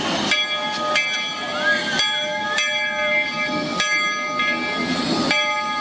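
Steam locomotive bell ringing in slow, regular strokes about every second and a half, each stroke ringing on into the next, as the engine gets ready to pull out.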